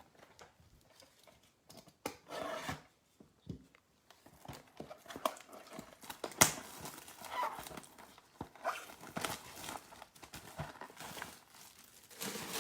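Trading card pack wrappers being torn open and crinkled, a run of irregular rustles with one sharp click about six seconds in.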